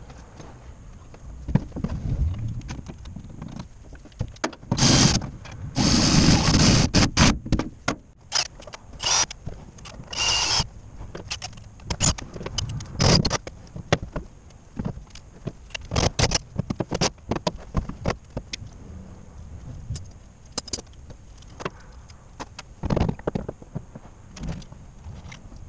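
Hand work on metal parts: scattered clicks, knocks and scraping as a part is handled and fitted at the top of the windshield frame, with several short, louder, noisy bursts in the first half.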